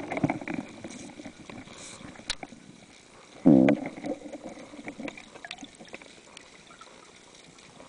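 Underwater sound through a diving camera: scattered clicks and crackle, broken about three and a half seconds in by a short, muffled hum from the diver.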